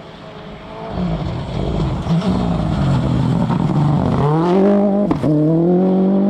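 Rally car engine approaching and getting louder. Its note falls as the car slows, then climbs steeply as it accelerates hard from about four seconds in. There is a brief sharp break in the note about five seconds in, then it holds at high revs.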